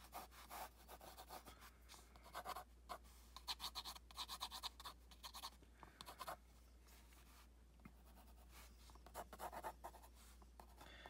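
Pencil sketching on paper: faint, quick repeated strokes, pausing for about two seconds past the middle, then a last run of strokes near the end.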